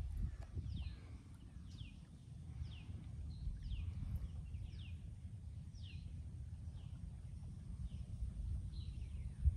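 Birds calling, with short falling chirps about once a second over a low, unsteady rumble.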